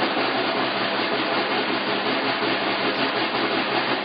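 Snare drum played in a sustained roll, a steady, even rattle with no separate strokes standing out.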